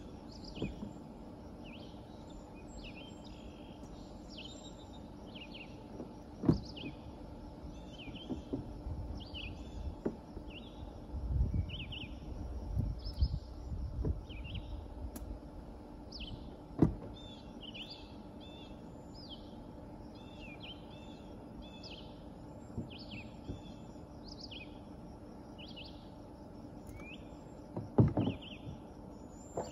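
Small woodland birds chirping and singing in many short calls, over a faint steady outdoor background. A few sharp knocks break in now and then, the loudest near the middle and a cluster of them near the end.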